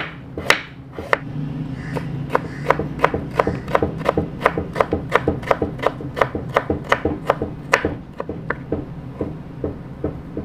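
Kitchen knife julienning fresh ginger on a plastic cutting board: a steady run of quick, sharp knife strikes on the board, about three a second, spaced wider at first and fainter and sparser near the end.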